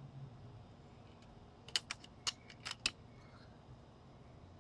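Five light, sharp metallic clicks within about a second, near the middle: the cocking action of an FX Panthera PCP air rifle being worked to chamber the next pellet between shots.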